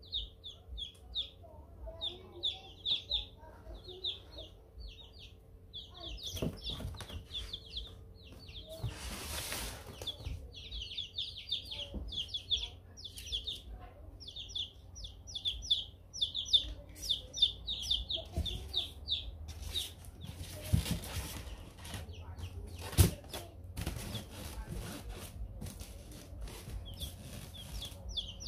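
Chicks peeping in quick runs of short, high calls, with rustling and a few knocks from hands handling eggs and the foam incubator box; the sharpest knock comes a little after twenty seconds in.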